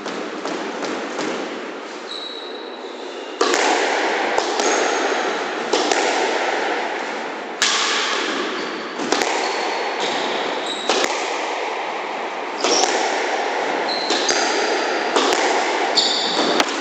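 A squash rally: the ball is struck by rackets and hits the court walls again and again, at uneven intervals. Short high squeaks of shoes on the wooden court floor come between the hits.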